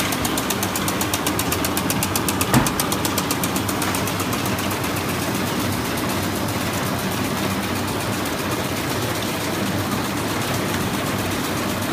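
High-speed candy flow-wrapping machine with a turntable feeder running: a steady mechanical clatter with rapid, even ticking through the first few seconds and a single knock about two and a half seconds in.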